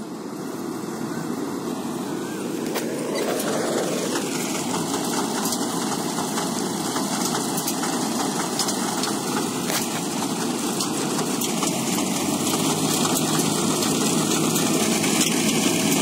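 Combine harvester running, its sound building over the first few seconds as the machinery is put to work, then holding steady.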